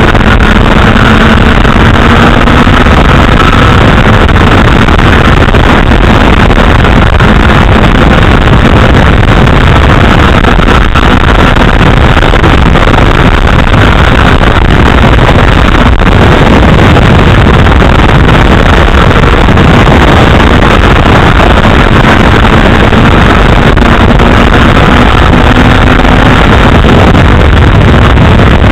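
Very loud, steady wind buffeting on a small keychain camera's microphone on a Honda CBR1000RR at speed. The bike's inline-four engine note sits faintly underneath, drifting slightly in pitch.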